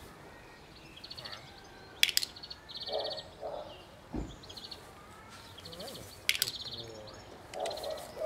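A small bird singing short, rapid trills again and again, with a few sharp clicks and a single soft thump about four seconds in.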